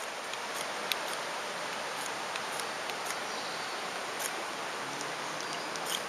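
Steady rush of the river, with several short, sharp scrapes of a knife on a ferrocerium rod, the last near the end, as sparks are struck onto dry leaf tinder to light a fire.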